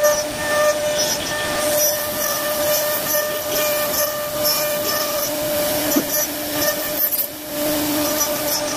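CNC router spindle whining steadily as it cuts a wooden door panel, with a short dip in level about seven seconds in.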